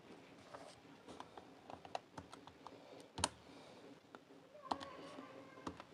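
Faint scattered clicks of a handheld scientific calculator's keys being pressed, with one sharper tap a little past halfway.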